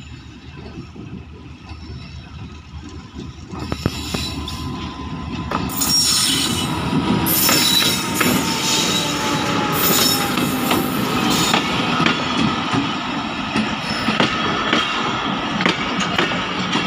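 Passenger train hauled by a diesel locomotive passing close by. Its noise builds from about four seconds in, then the coaches roll past with wheels clattering over the rail joints and high squeals from the wheels.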